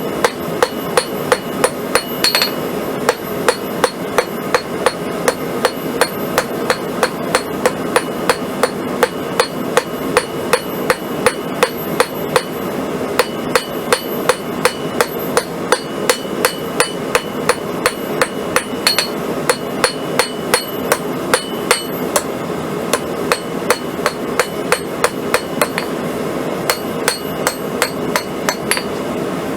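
Blacksmith's hammer striking hot 1/4-inch square steel stock on an anvil in a steady rhythm of about two to three blows a second, each blow ringing, as the nail portion of a drive hook is rounded up. A steady rushing noise runs underneath.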